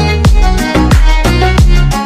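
Background music with a steady beat, about two drum hits a second, over held bass and melody notes.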